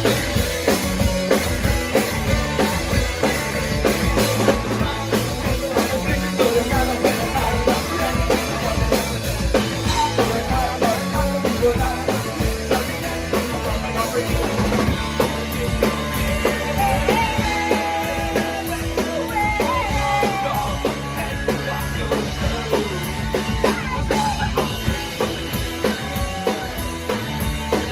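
Live rock band playing loud, fast music: a drum kit, electric guitars and bass together, with some singing.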